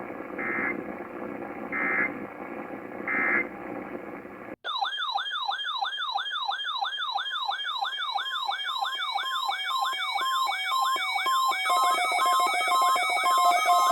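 Three short bursts of EAS end-of-message data tones over a hissy radio feed. After an abrupt cut comes a loud electronic warbling alarm siren that sweeps up and down about three times a second, changing near the end to a different pulsing, stepped siren pattern.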